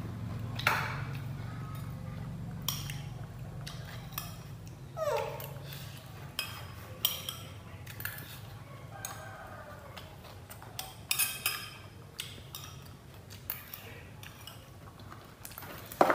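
A spoon clinking and scraping against a ceramic bowl as someone eats, in many short, irregular clicks. One short falling vocal sound about five seconds in.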